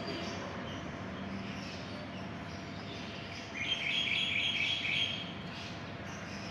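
Small birds chirping in a quick chattering run for about two seconds, starting about halfway through, over steady outdoor background noise.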